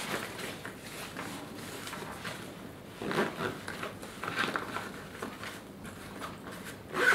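Rustling and scraping of a sports backpack's fabric as a drinking bottle is pushed into a side pocket, in a few short bursts about three and four and a half seconds in.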